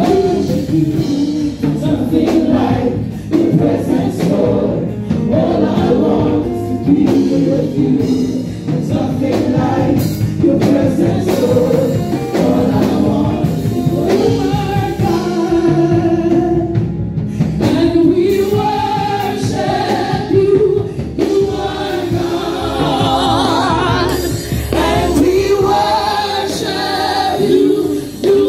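Gospel worship song sung by a worship leader and a congregation together, a slow praise song with long held notes.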